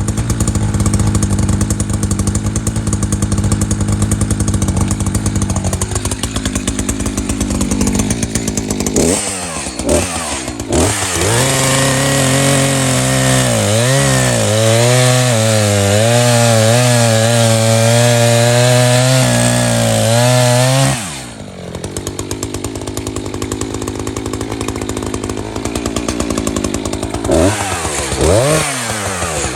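Bauer cordless battery chainsaw with a freshly sharpened chain running at full speed, then cutting into a small downed branch. Its motor pitch drops and wavers under load for about ten seconds, comes back up to full speed, and bogs down again near the end as another cut begins.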